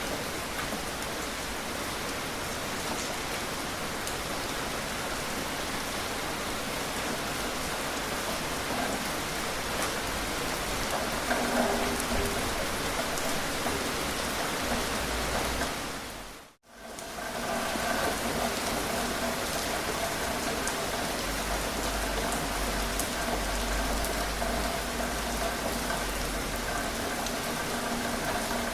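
Steady rain falling, with the patter of individual drops. About two-thirds of the way through it briefly fades out and straight back in. After that a faint steady hum sits under the rain.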